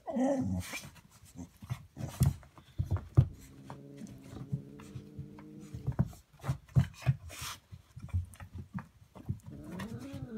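Dog vocalising in play: a short falling whine at the start, a low drawn-out grumble a few seconds in, and a rising-and-falling whine near the end, with scattered taps and thumps between.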